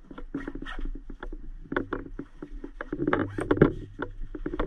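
Gloved hands handling and packing away a nylon medical bag and its contents: a busy run of rustles, clicks and small knocks that grows louder and busier about three seconds in, over a steady low hum.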